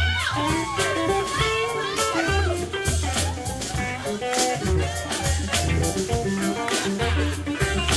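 Live soul band playing: a lead line with bending, sliding notes over a steady bass line, drums and cymbals.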